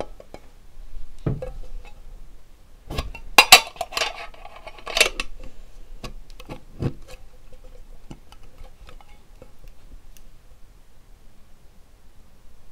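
Metal watch tin being handled and opened: scattered clicks and knocks, with a louder metallic clatter of the lid and tin from about three to five seconds in, then a few lighter taps.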